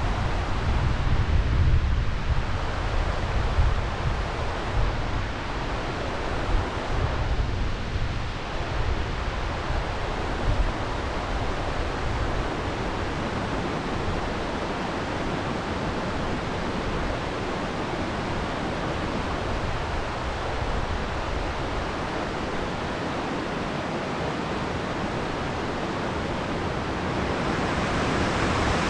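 Steady rush of river water pouring over a long low weir and churning in the whitewater below it. Wind buffets the microphone in uneven gusts during the first dozen seconds or so.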